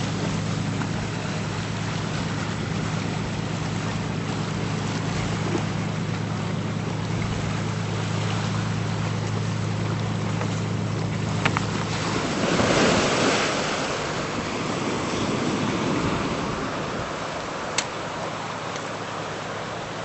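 Surf washing on the shore with wind on the microphone, swelling about twelve seconds in, over a steady low hum that stops at the same moment; a couple of brief sharp clicks later on.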